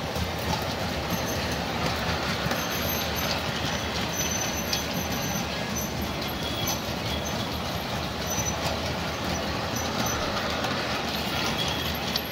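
G-scale model freight train rolling steadily around a curved brass track loop: a continuous rumbling clatter of the cars' wheels on the rails, with a faint high whine that comes and goes.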